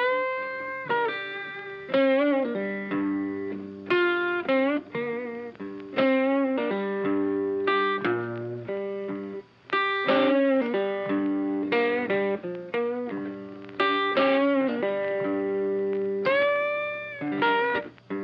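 Background music: guitar-led instrumental with plucked notes, some bent upward, over a steady low accompaniment.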